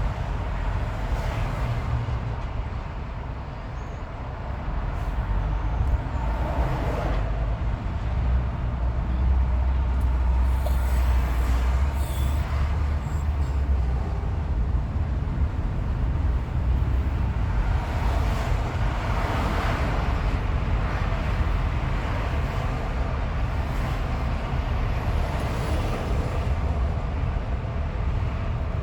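Steady road and tyre noise of a car cruising on a freeway, over a low rumble, swelling a few times as the noise rises and falls.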